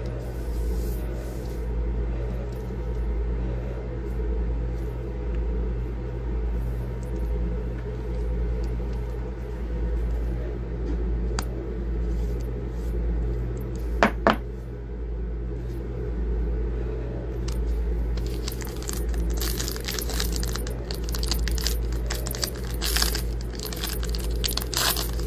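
A steady low hum, with two sharp clicks about halfway through; in the last several seconds a trading-card pack's foil wrapper crinkles and tears as it is opened.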